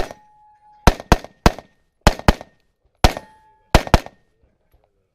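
Pistol shots in rapid succession, nine in about four seconds, several fired as quick pairs; a short ringing tone follows the first shot and another shot later on.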